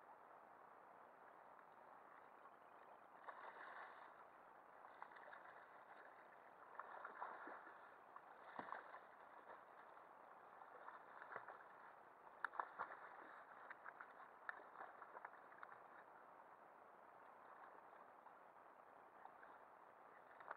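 Faint sloshing and splashing of seawater at a kayak's side, with irregular louder splashes from a hooked fish thrashing at the surface and a few sharp knocks about two-thirds of the way in.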